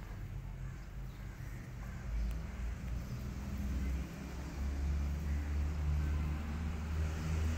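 Low engine rumble of a vehicle, swelling about two seconds in and louder again through the second half.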